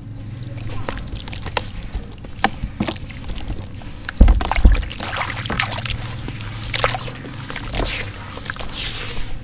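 Sand cement crumbling and sprinkling from hands into a basin of water, with gritty crackling and small splashes as the grains and lumps hit the water. About four seconds in there is a heavy wet thump and splash, the loudest sound. Near the end comes the squelch of hands squeezing the soaked mud.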